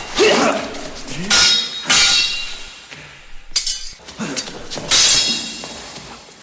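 Steel swords clashing in a fight, about half a dozen sharp blade-on-blade strikes that each ring briefly, the loudest about a second and a half, two seconds and five seconds in.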